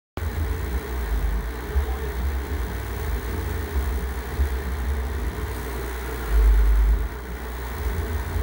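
Wind buffeting the microphone on an open sea cliff: an irregular low rumble with a stronger gust about six seconds in.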